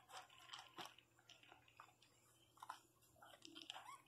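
Faint, irregular clicking and crunching of Pinscher puppies chewing dry kibble.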